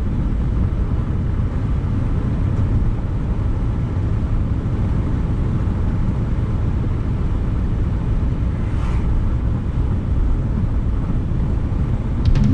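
Steady road noise of a Suzuki Hustler driving at speed: an even low rumble of tyres and wind, with a couple of short clicks near the end.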